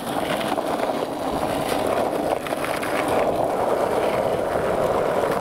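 Skateboard wheels rolling steadily over rough asphalt, a continuous rolling rumble.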